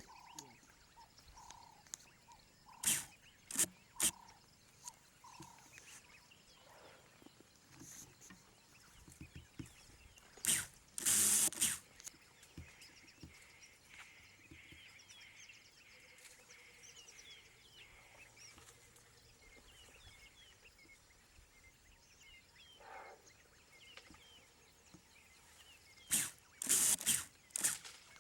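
Quiet open-air ambience with faint bird chirps in the middle, broken by short sharp rustling or knocking noises: three quick ones a few seconds in, a longer burst around ten to twelve seconds, and a cluster near the end.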